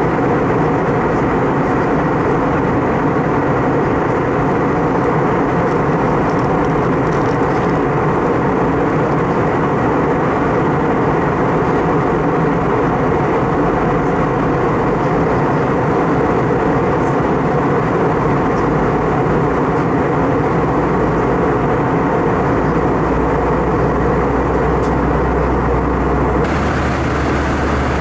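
Steady cabin noise of an Airbus A320 in cruise: an even roar of jet engine and airflow, with a faint steady hum under it. Near the end the sound changes abruptly, duller and with a stronger low hum.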